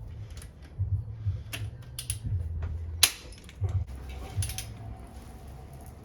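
Click-type torque wrench tightening RB20 cylinder head bolts at the 80 foot-pound step: a string of sharp, irregular metallic clicks from the ratchet and the wrench breaking over at its set torque, the loudest about three seconds in.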